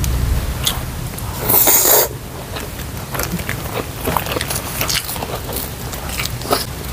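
Close-miked chewing and small mouth clicks from eating a spoonful of sticky rice topped with preserved radish, with a short hissing rustle about one and a half seconds in.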